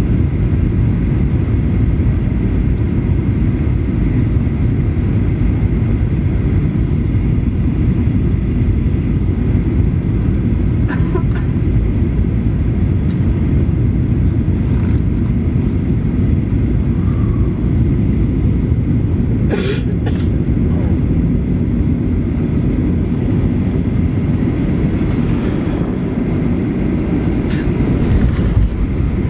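Steady low rumble of engine and airflow noise inside the cabin of a Boeing 737-900ER during its landing, with a few brief clicks and rattles.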